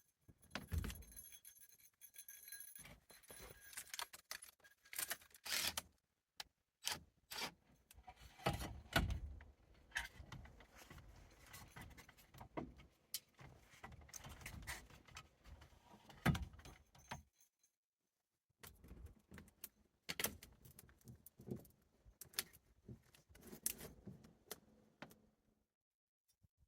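Small metal pieces clinking and rattling as they are handled, in irregular clusters of sharp clicks, with a pause of a second or so about two-thirds of the way through.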